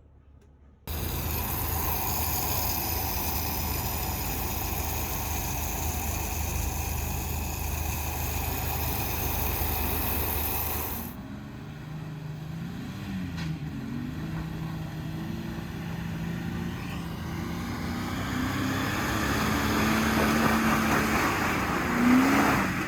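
Off-road vehicle engine sound: a steady loud drone with a high whine starts suddenly about a second in, then about halfway through changes abruptly to an engine revving up and down under throttle, climbing in pitch near the end.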